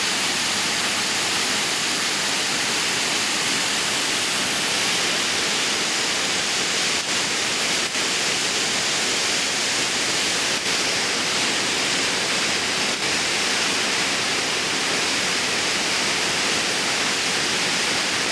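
Waterfall: a loud, steady rush of falling water, with a few momentary dips in level.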